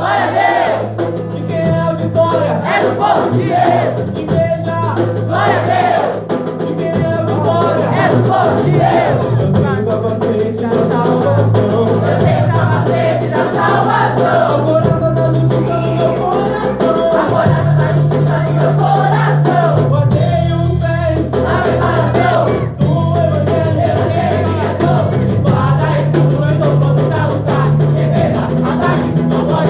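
Gospel song sung by voices over band accompaniment, with a steady bass line that moves between notes every few seconds.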